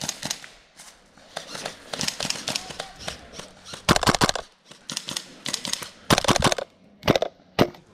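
Airsoft guns firing in rapid bursts of clicking shots, several bursts in a row, the loudest about four seconds in.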